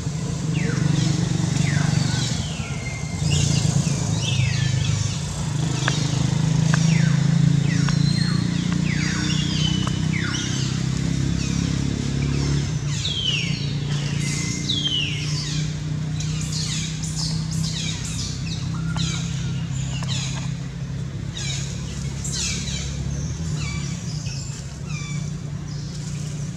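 A steady low engine drone, with many birds calling over it in short, high, downward-sweeping chirps.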